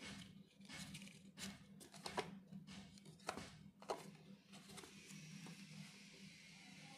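Cardboard smartwatch packaging being handled: faint taps, clicks and rustles as the box and inner tray are moved, ending in a soft steady sliding rustle, over a faint low hum.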